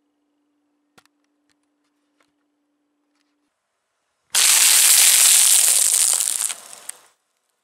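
Puffed rice cakes crunching and crackling as a car tyre rolls over and crushes them. The sound starts suddenly about four seconds in, is loud for about two seconds, then tails off with a last crack.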